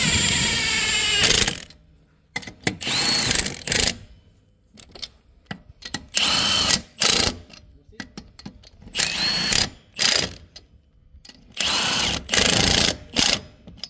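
Milwaukee M18 FUEL 2769-22 compact 1/2-inch cordless impact wrench hammering on a wheel's lug nuts in about five bursts of one to two seconds each, with short pauses between as it moves from nut to nut.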